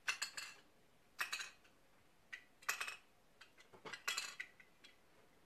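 Four short, faint rasping sounds as a LipSense liquid-lipstick applicator wand is swept across the lips.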